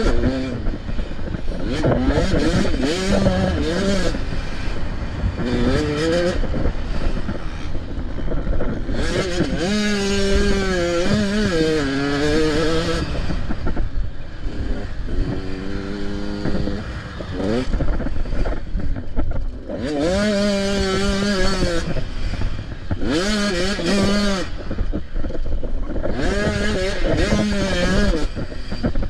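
85cc two-stroke dirt bike racing: the engine revs up and drops off over and over as the throttle is opened and closed through the gears, with a constant rush of noise underneath.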